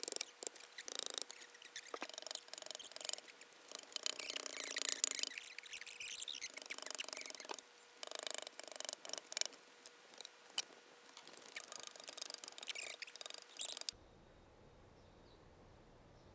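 A log being split lengthwise with a homemade long-handled tool, a leaf-spring blade lashed to a wooden handle: irregular bursts of wood crackling, fibres tearing and splinters snapping, with sharp clicks, stopping abruptly about 14 seconds in, after which only a faint steady background remains.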